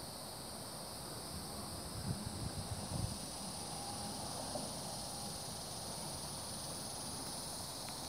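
Steady high insect chorus, with wind buffeting the microphone in low gusts, strongest about two to three seconds in.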